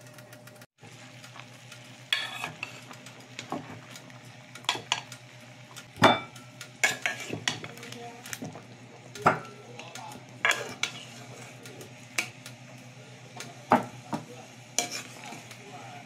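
A serving spoon clinking and knocking against a metal pot and a plate as boiled corn cobs are scooped out of the water, a dozen or so irregular sharp clinks.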